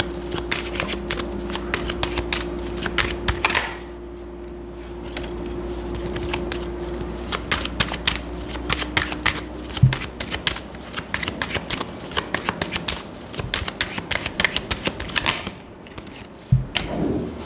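A deck of tarot cards being shuffled by hand: rapid runs of card-edge flicks and clicks, with a short lull about four seconds in and another near the end, where a low knock is heard.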